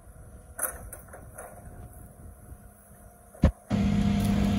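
Cat 308E2 CR mini excavator running, its engine and hydraulics working the boom and dipper: low and even at first, a sharp knock about three and a half seconds in, then a loud steady drone with a low hum.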